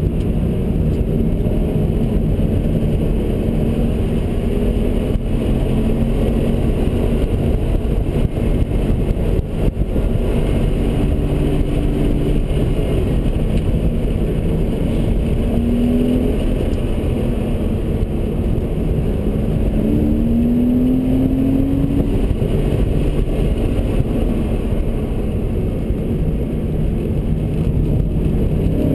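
Car engine heard from inside the cabin at track speed, under a steady wash of wind and tyre noise. Its note climbs in pitch several times in the second half as the car accelerates hard.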